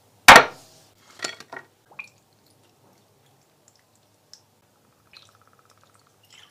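A ceramic plate set down on a stone countertop with one sharp clack, followed by a few lighter clicks and taps. Later come faint ticks and a brief thin trickle of sauce poured from a spouted bottle onto the meat.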